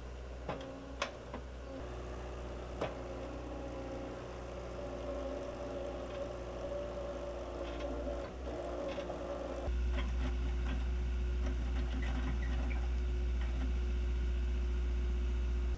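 Skid steer engine running steadily while its auger attachment bores a post hole, with a few light clicks over the hum. The hum gets louder about ten seconds in.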